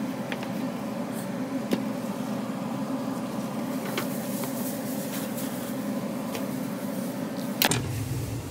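Steady mechanical hum of background machinery, with a few sharp clicks scattered through it; the sound changes abruptly with a louder click near the end.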